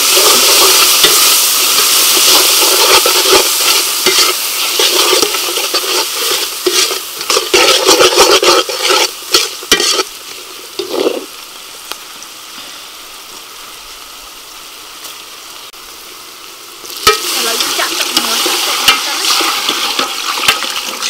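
Sliced shallots, garlic and lemongrass sizzling in hot oil in an aluminium pot while a metal ladle stirs and scrapes them. There are many clicks of the ladle for the first ten seconds, then the sizzle quietens. It rises again near the end as water is poured into the hot pot.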